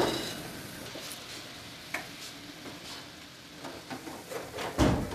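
Faint kitchen handling noises: a light click at the start, a few small ticks over a soft hiss, and a dull low thump near the end.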